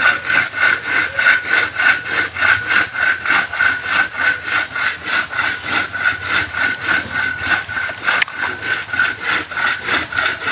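Two-man manual crosscut saw cutting through wood, pulled back and forth in a fast, even rhythm of strokes.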